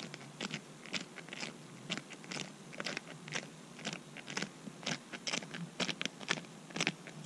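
Footsteps crunching on snow-crusted lake ice, a steady walking pace of about two steps a second.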